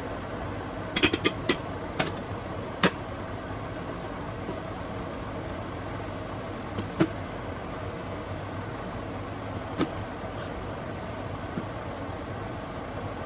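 Steady rushing background noise with a low hum, broken by a handful of sharp clinks. There is a quick cluster of clinks about a second in, then single ones a few seconds apart.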